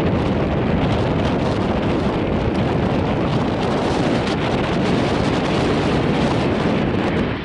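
Wind buffeting the microphone: a loud, steady rushing roar with a heavy low rumble.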